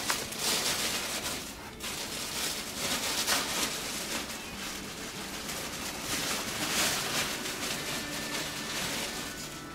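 Crinkly wrapping rustling in uneven surges as a doll is pulled out of it.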